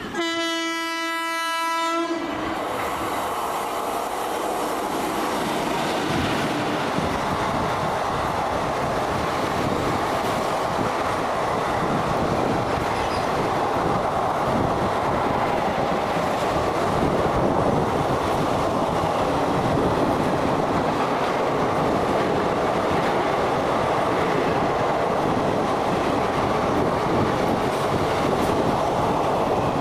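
An Indian electric locomotive's horn sounds one blast of about two seconds. Then the train's ICF passenger coaches run past with a steady clatter of wheels over the rails.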